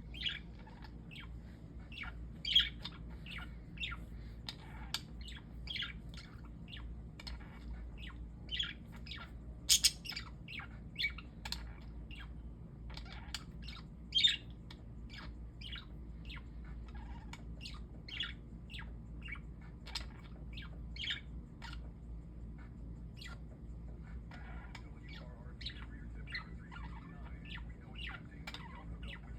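Parakeets chirping and squawking: a steady stream of short, high calls, one or two a second, with a few louder squawks about a third of the way and halfway through. A faint low hum runs underneath.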